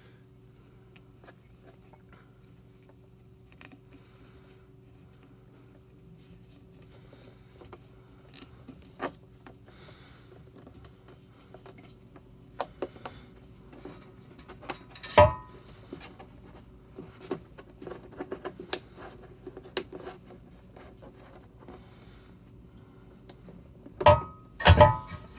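Aluminum heater mount bracket being handled and knocked against metal: scattered light clicks and taps, with a sharp clank about halfway through and two more near the end, each ringing briefly, over a faint steady hum.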